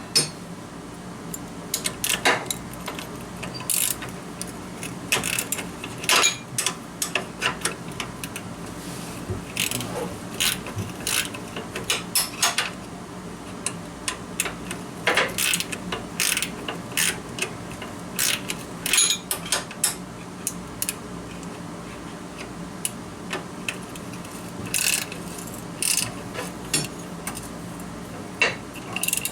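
Ratchet wrench clicking in irregular runs with metal clinks, tightening the bolt on a mower deck pulley after the belt has been fitted, over a faint steady low hum.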